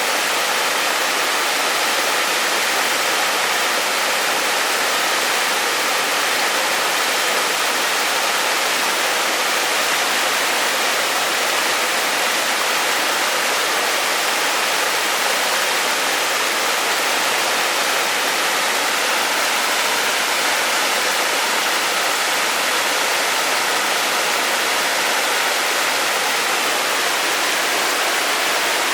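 A waterfall's falling water rushing steadily, a dense, unchanging hiss with little low rumble.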